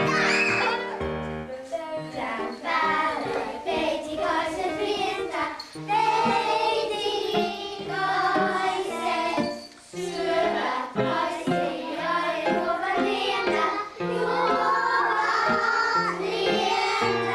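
Children singing a song over instrumental accompaniment, with bass notes moving in steps beneath the voices.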